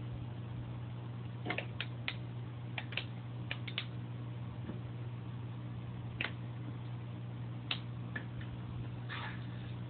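A steady low hum with scattered light clicks, more of them in the first few seconds.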